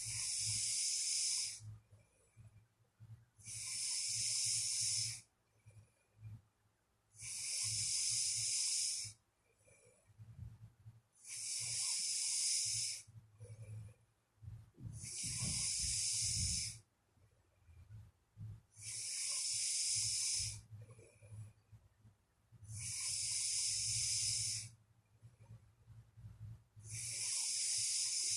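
A sleeping person snoring and breathing: a hissing breath about every four seconds, each lasting about two seconds, with a faint low rumble between breaths.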